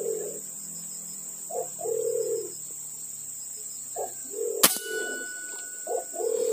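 Green imperial pigeons cooing: a deep phrase of a few short notes leading into a longer held coo, repeated about four times. About two-thirds of the way through comes the single sharp crack of an air rifle shot, followed by a thin ringing tone for about a second.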